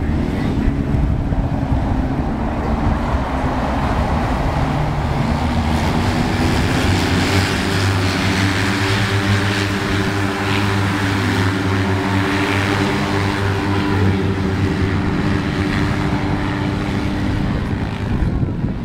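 Polaris RZR side-by-sides racing on an ice track, several engines running at once in a steady drone of overlapping engine notes that grows stronger through the middle as the pack comes by.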